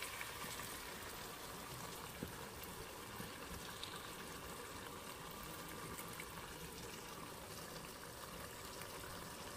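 Pork pieces and broth in a frying pan on the heat, with a faint, steady bubbling hiss as the freshly poured broth comes up to a simmer. At the start broth is still being poured in from a pot.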